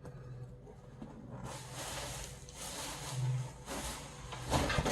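A watercolour brush swishing over textured watercolour paper, spreading a puddle of excess water and paint. It starts about a second and a half in, with a louder rustle near the end.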